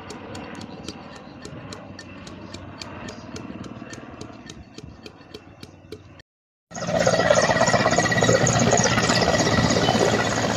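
Helicopter flying overhead. At first it is distant and faint, its rotor beating at about four to five pulses a second. After a brief dropout about six seconds in, a louder, closer helicopter comes in with a steady high whine over the rotor noise.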